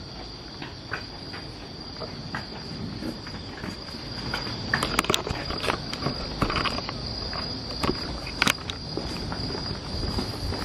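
Insects, crickets or the like, chirring in a steady high-pitched drone in the night, with irregular footsteps and scattered clicks over it that grow busier about halfway through.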